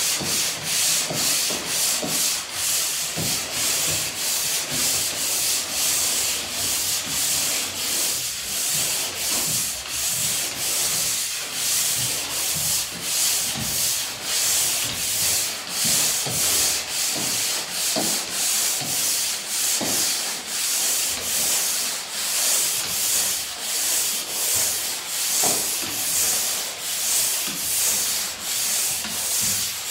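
Pole sander being stroked up and down a wall, a scratchy sanding sound in a steady rhythm of about two strokes a second.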